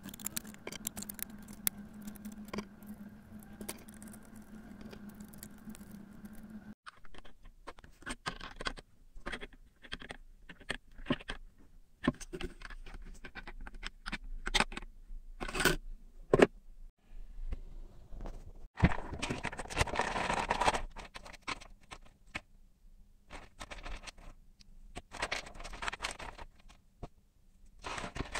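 Handling noises of assembling a small electronics project: scattered clicks, taps and scrapes of metal potentiometer shafts and nuts against a thin plastic box, with needle-nose pliers on the nuts. A couple of longer rustling stretches of bundled wires and plastic connectors come later on.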